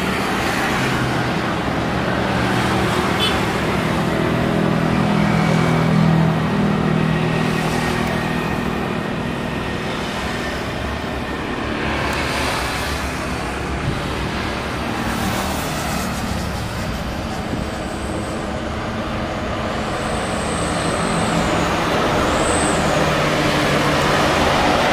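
Airbus A330 jet engines at takeoff thrust as the airliner rolls down the runway and lifts off: a steady, loud rumble that grows a little louder near the end.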